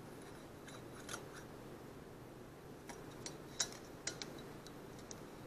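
Faint, light metallic clicks and scrapes of a steel feeler gauge being handled and slid between the valve stem and rocker arm of a Honda GXV160 engine, checking the exhaust valve clearance. There are a handful of scattered ticks, the sharpest about three and a half seconds in.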